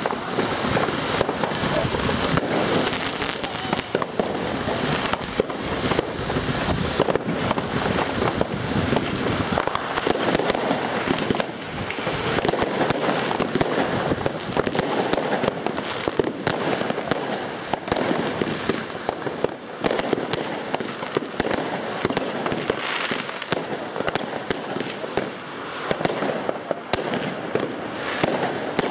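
Consumer fireworks in a crackling finale: batteries fire red comets and fountains spray crackling sparks. The result is an unbroken, dense mass of sharp crackles and pops.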